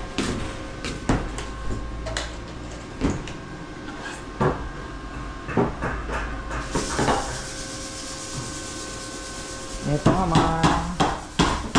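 Scattered knocks and clatter of wood and tools being handled, then, about ten seconds in, a quick run of hammer blows, some with a short ringing.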